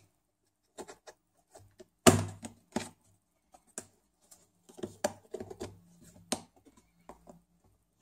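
Scattered clicks and knocks of a plastic speaker cover being handled and pressed into place on the underside of a Panasonic Toughbook CF-18 laptop. The loudest knock comes a little after two seconds in, with a busier run of small clicks around five to six seconds.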